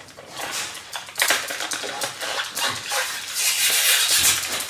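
Clear plastic wrapping crinkling and rustling as it is pulled off a laptop. It is quieter for the first second and then a dense, loud crackle.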